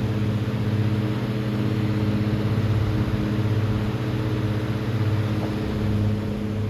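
Antique Emerson 29668 16-inch six-blade table fan running on high: a steady rush of moving air over a low motor hum, with the desk under it vibrating along.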